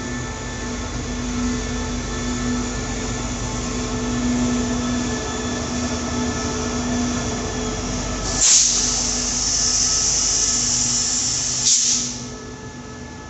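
Diesel locomotive hauling a container freight train past, its engine running with a steady hum. About eight seconds in, a loud hiss of air starts sharply, lasts about three and a half seconds and cuts off.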